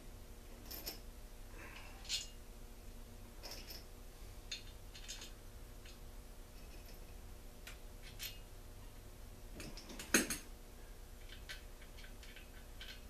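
Scattered light clicks and clinks of small metal engine parts and hand tools being picked up, set down and fitted while a two-stroke blower engine's cylinder is reassembled by hand, with a sharper clack about ten seconds in.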